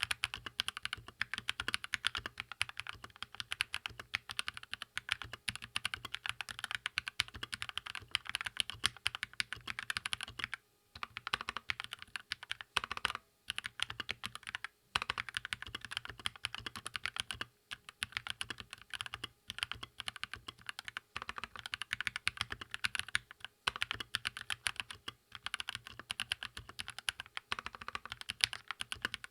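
Keychron K2 mechanical keyboard with red linear switches being typed on at a steady, fast pace: a dense run of key presses with a few brief pauses.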